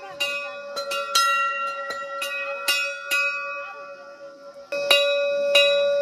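Temple bells struck again and again at an irregular pace, each strike ringing on and overlapping the next. The ringing thins out for about a second and a half in the middle, then two loud strikes come near the end.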